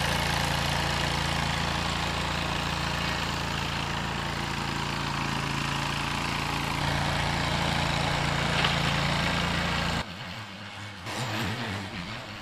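Zero-turn riding mower's engine running steadily as it tows a weighted plug aerator across the lawn. About ten seconds in the sound drops suddenly to a much quieter, more distant engine.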